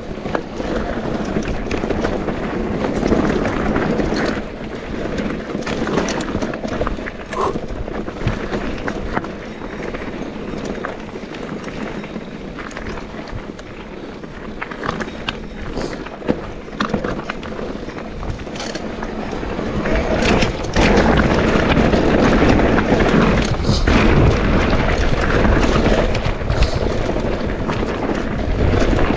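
Mountain bike riding down a dirt bike-park trail: steady tyre noise over the ground with frequent clatters and knocks as the bike goes over bumps. It gets louder about two-thirds of the way through.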